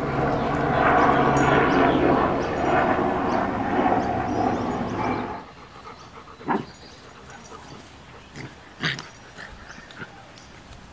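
Siberian husky puppies growling in play, loud and rough for about five seconds, then quieter with a few short sharp yips or snaps.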